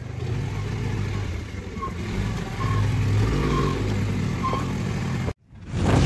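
A vehicle engine running steadily, getting louder about two seconds in. It cuts off abruptly near the end, and a whoosh begins to rise.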